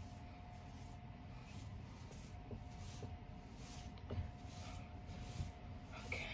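Faint, repeated rustling of wig hair as it is fluffed and shaken out by hand, with a few soft thumps and a faint steady hum underneath.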